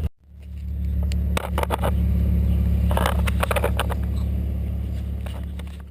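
BMW 325Ci straight-six idling steadily through a DTM Euro-spec single-inlet, dual-outlet muffler, a low even exhaust hum, with scattered short clicks and crackles over it.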